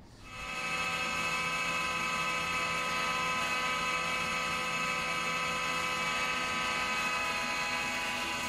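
Planer-jointer running, with a Sapele board being fed by hand over its cutterhead to face-plane it straight. It is a steady whine that comes up within the first second and then holds even.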